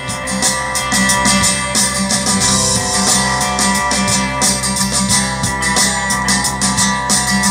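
Guitar music with drums playing through a Sony CFD-760 boombox's detachable Mega Bass speaker cabinet, fitted with a replacement tweeter for a distorted one. This is a listening test of the repaired speaker, which the owner finds sounds good, with fuller bass.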